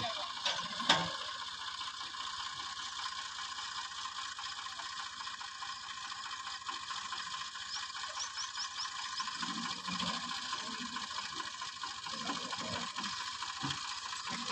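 Tractor-driven water-well boring rig running: a steady, fast mechanical clatter of its machinery.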